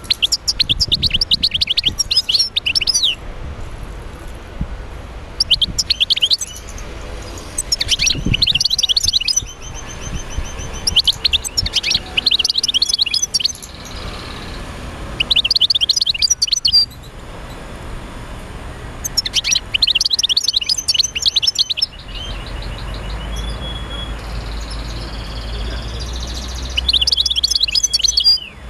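Birds chirping in repeated bursts of rapid, high chirps with short gaps between them, over a steady low rumble.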